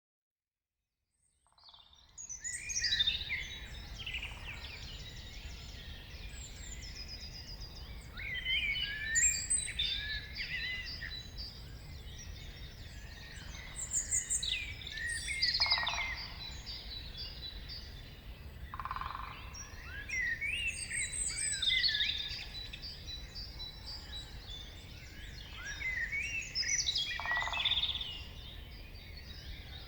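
Morning forest chorus of many songbirds, overlapping songs and chirps, over a steady low rumble. It fades in over the first couple of seconds, and a few short lower calls stand out now and then.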